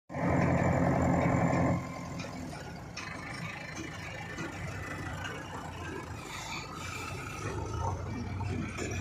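JCB backhoe loader's diesel engine working close by, loud for the first couple of seconds and then dropping to a lower, steadier running.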